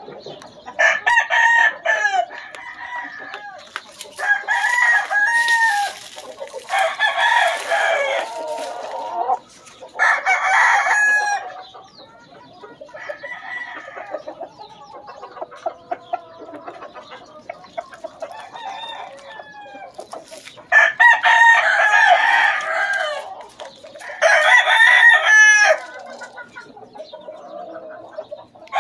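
Several gamefowl roosters crowing one after another, about seven loud crows, some overlapping, with quieter clucking between them.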